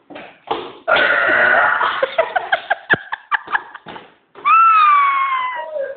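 A long, loud, rough burp lasting about a second, starting about a second in. It is followed by a few short clicks and, near the end, a high pitched sound that falls slowly.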